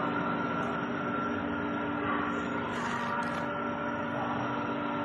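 A steady hum with several constant tones over a continuous background noise.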